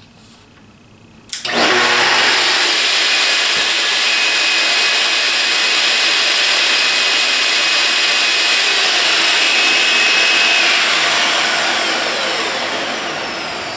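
Festool TS 55 track saw switched on without cutting: the motor and blade spin up about a second and a half in, run steady at full speed with a high whine, then are switched off and wind down with falling pitch. The freshly repaired saw runs free and sounds good.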